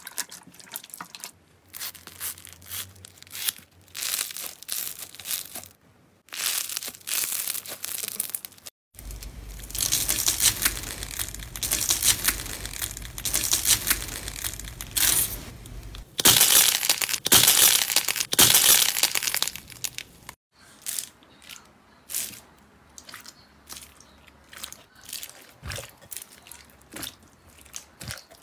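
Hands squeezing, pressing and kneading slime, some of it packed with foam beads, making dense runs of wet clicks, crackles and pops. The sound changes abruptly a few times, and the busiest, loudest crackling comes about two-thirds of the way through.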